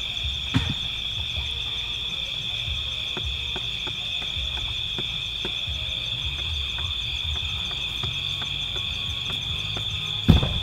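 Steady high-pitched chorus of evening insects trilling without a break. Scattered light taps run through it, with a sharper knock about half a second in and a louder one near the end.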